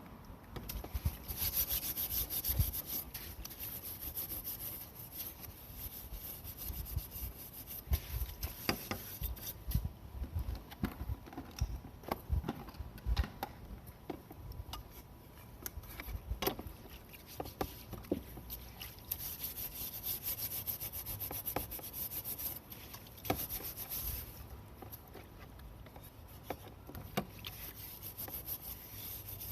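A kitchen ventilation-fan filter with many small holes being scrubbed clean: repeated rubbing and scratching strokes, with scattered light knocks.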